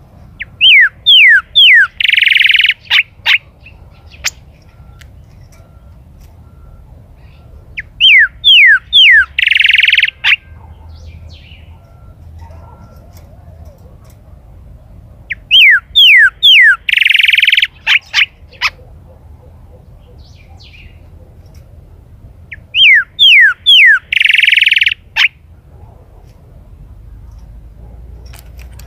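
Chalchalero (golden-billed saltator) singing: four loud phrases about seven seconds apart, each a quick run of four or five falling whistled notes that ends in a short harsh, buzzy note.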